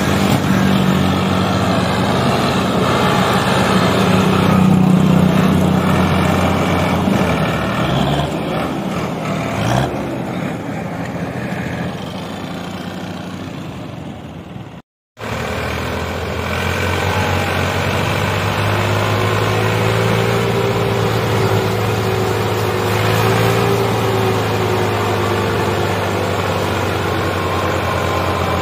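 Tractor diesel engines working under load, hauling heavily loaded sugarcane trolleys. In the first half the Ford 3610 strains against a full trolley in a field. After a brief dropout about halfway, a tractor engine runs steadily as it pulls along a sandy track.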